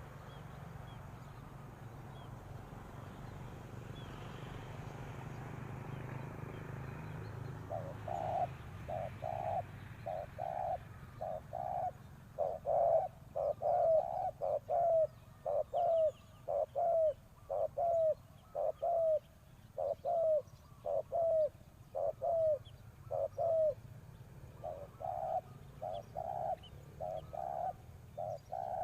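Spotted dove cooing: after a stretch of faint background hiss and hum, a long run of short, low coo notes begins about eight seconds in, coming about twice a second and getting louder a few seconds later, with notes overlapping in places.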